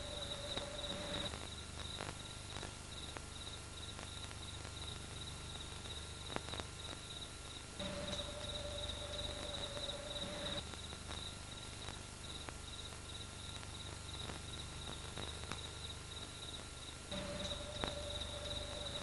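Steady, rapid high-pitched insect-like chirping. A steady lower tone of about three seconds comes in at the start, again about eight seconds in, and again near the end.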